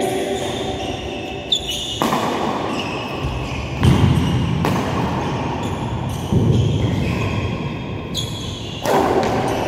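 Badminton rally in an echoing sports hall: a shuttlecock is struck by rackets several times, about every one to two seconds, each hit ringing on in the hall, with shoes squeaking on the court floor between hits.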